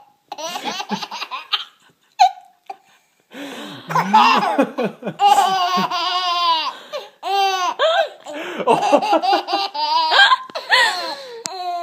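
A baby laughing in repeated high-pitched fits of belly laughter, with short gasps between them and a brief pause about two seconds in.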